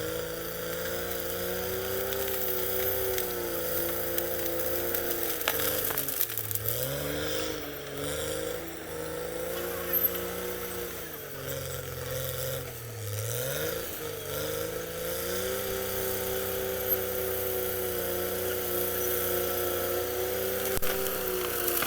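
CAT D6R XL bulldozer's diesel engine running steadily, its pitch sagging twice, about six and thirteen seconds in, before picking back up, with a few sharp knocks.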